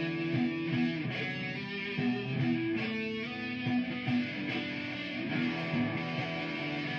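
Electric guitar, played through effects pedals and an amplifier, improvising a solo over a repeating looped guitar part with sustained notes.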